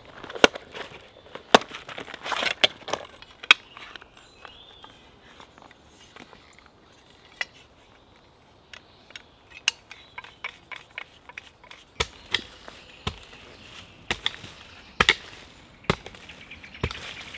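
Folding army entrenching tool with a pick head being handled and locked with small clicks, then striking into hard, clay-laden woodland soil, a series of sharp chopping hits about a second apart near the end.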